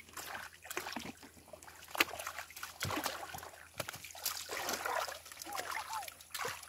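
Muddy water splashing and trickling around a large woven taboca-stalk fishing sieve being worked through shallow water and lifted, water draining through the weave, with scattered small irregular splashes.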